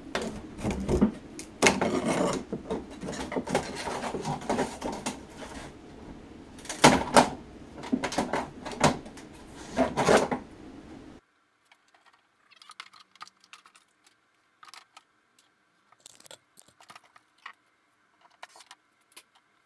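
Temporary wooden backing strip being prised and scraped off the edge of a freshly fibreglassed panel with a hand tool: an irregular run of knocks, scrapes and cracks. About eleven seconds in the sound stops abruptly, leaving near silence with a few faint clicks.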